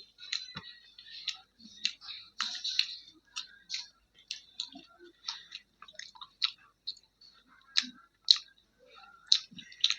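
Close-miked chewing of soft, saucy food (roti with kadhi pakoda): wet mouth clicks and smacks about twice a second.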